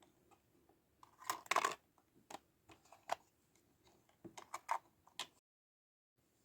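Small plastic toy pieces of a Licca-chan miniature refrigerator set being handled: light clicks, taps and a short rattle about a second in, scattered single clicks, then another quick run of clicks before the sound cuts out abruptly.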